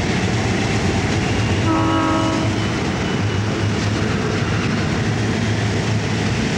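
Diesel freight locomotives passing under power with a steady low engine rumble, and a short horn blast about two seconds in, lasting about a second.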